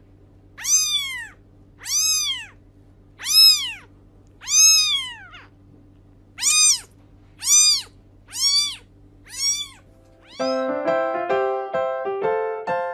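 Kitten meowing: eight high-pitched mews, each rising then falling in pitch, a little over a second apart. Piano music starts near the end.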